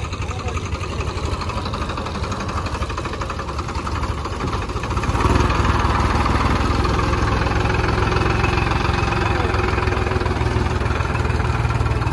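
Farmtrac 60 tractor's diesel engine running, then revving up about five seconds in and holding at higher, louder revs as the tractor moves off through the mud.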